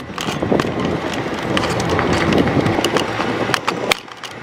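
Plastic dashboard trim and switch connectors being handled and pressed into place, with irregular clicks and knocks.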